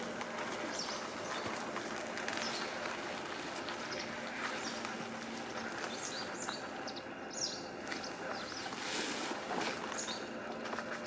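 Quiet outdoor background with small birds chirping now and then over a faint steady hum; the hum stops about halfway through.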